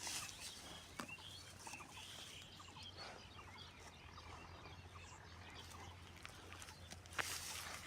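Faint outdoor field ambience: scattered small chirps and soft clicks over a low steady hum, with a brief rustle near the end.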